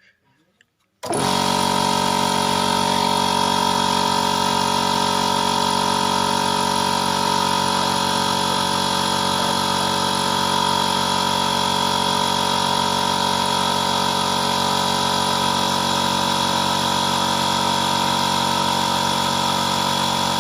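Electric air compressor starting about a second in and then running steadily with a constant hum and drone, refilling its tank after the pressure switch cut it back in, toward its newly adjusted 90 psi cut-out.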